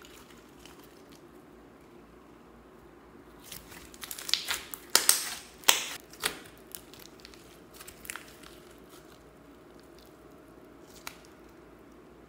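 Hands squeezing and stretching a large lump of glittery slime studded with foam beads, giving sticky squishes and sharp pops and clicks. The pops bunch together about four to six seconds in, with a few lone ones later.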